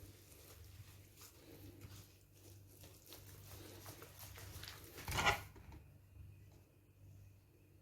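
Faint, soft handling sounds of ground coconut being added and mixed into a wet cookie batter in a bowl, with one brief louder noise about five seconds in.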